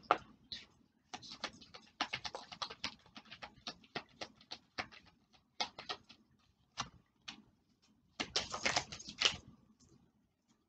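Oracle cards being shuffled by hand: a run of quick, papery clicks and flicks, with a denser, louder flurry about eight seconds in.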